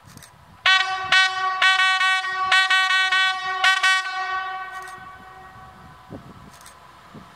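Newag Impuls 2 (EN63H) hybrid multiple unit playing its RP1 train horn as a 'concert': a quick series of short, loud two-tone toots starting under a second in and lasting about three seconds, then fading out.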